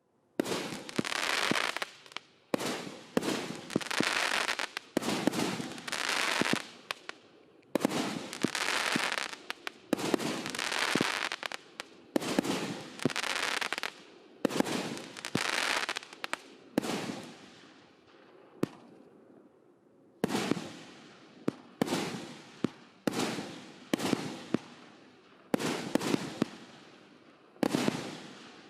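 Consumer fireworks battery (cake) firing its shots in sequence, about one a second. Each launch is followed by an aerial burst that trails off, with a brief lull about two-thirds of the way through.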